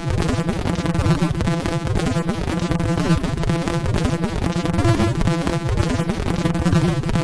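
Dense, buzzy synthesizer texture of many layered tones over a low drone, a made-up 'sound' of a distant star.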